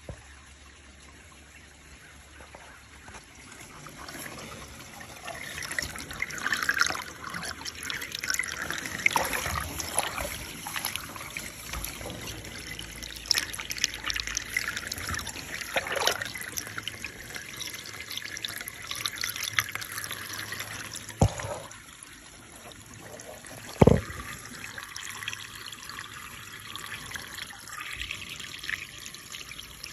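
Water trickling and running along a metal rain gutter and draining down into the downspout outlet, flowing freely now that the leaf clog has been cleared. A couple of sharp knocks break in, the loudest about three quarters of the way through.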